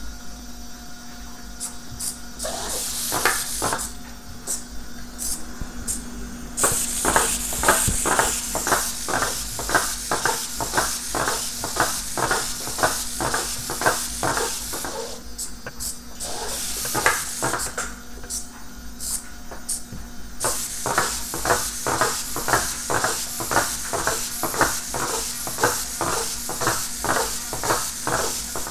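Innovati Mini Hexapodinno hexapod robot walking: its hobby servos whir while its plastic feet tap on a smooth tabletop about two to three times a second. The robot pauses briefly a couple of times before walking on.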